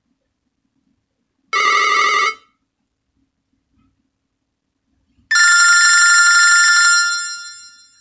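Two BlackBerry Q10 ringtone previews playing through the phone's loudspeaker as ringtones are picked from the list: a short bright chime of under a second about a second and a half in, cut off, then a second, longer ringing tone starting about five seconds in that holds for a second and a half and then fades out.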